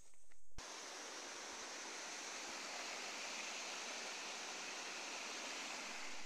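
Stream water rushing and splashing down small cascades over rocks, a steady even rush that starts abruptly about half a second in.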